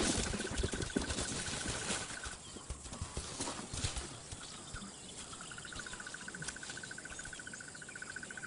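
Young lions play-fighting: a run of thuds and scuffles over the first few seconds, then quieter. An insect trills steadily throughout, dropping out for a few seconds in the middle.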